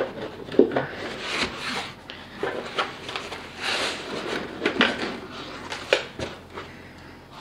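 A thick foam packing insert being lifted and worked free of a rifle case by hand: rustling and scraping of foam against foam and cardboard, with several short knocks.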